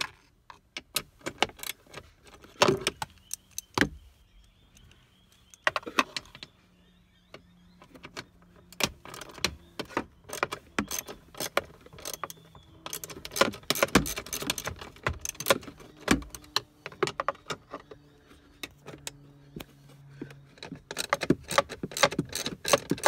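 Ratchet with a 10 mm socket clicking in quick runs as the bolts of a metal dash bar are undone, with metallic taps and rattles of the socket and tools.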